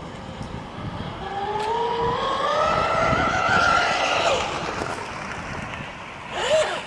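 Twin-motor Radtek RC club racer boat making a fast pass: its motor whine climbs in pitch over a few seconds, then drops off as the boat goes by. Near the end comes a brief swoop up and down as it throttles again.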